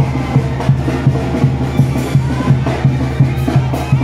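Live street-band music for a procession, with sustained low notes over a steady drum beat.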